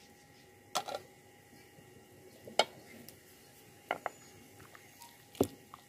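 Wooden spoon knocking against a clay cooking pot while stirring tomatoes into a beef curry: four separate sharp knocks spread over a few seconds.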